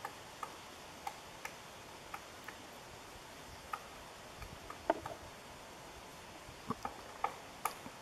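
Pileated woodpecker's bill tapping and prying at tree bark while it forages for insects: a dozen or so sharp, irregular taps, the loudest about five seconds in, over a steady hiss.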